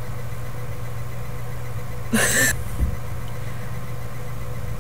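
A steady low electrical hum, with a short noisy burst about two seconds in.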